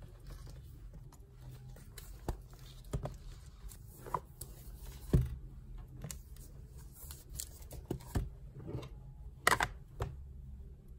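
Irregular taps, clicks and light rustles of things being handled and set down on a desk, over quiet room tone. The sharpest knocks come about five seconds in and again near nine and a half seconds.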